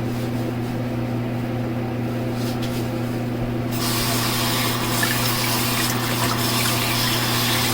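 Tap water running into a sink, the flow opening up strongly about three and a half seconds in, over a steady low hum.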